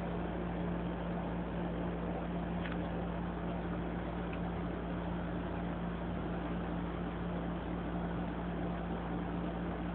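A steady low hum with a constant noisy hiss behind it, unchanging throughout.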